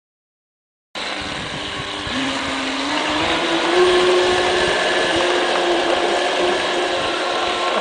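Home-made RC trimaran's Roxxy 44-65-06 electric motor and 47 mm propeller whining at speed over a loud hiss of water and wind. The sound starts abruptly about a second in, and the whine climbs in pitch over the next couple of seconds, then holds steady.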